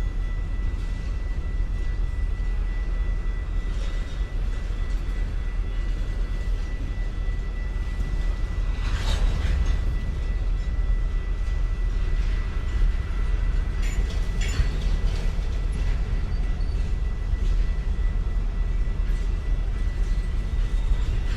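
City ambience recording: a steady low rumble with a thin steady high tone over it, and a few short clicks and rattles about nine seconds in and again around fourteen seconds.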